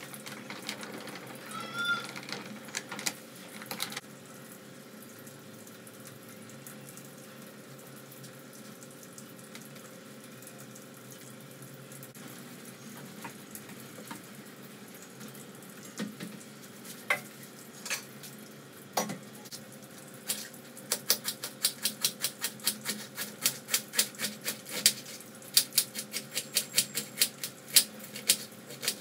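Knife chopping cabbage on a steel plate in quick, regular strokes, about four a second, starting about two-thirds of the way in. Before that there are only quiet handling sounds and a few scattered clicks.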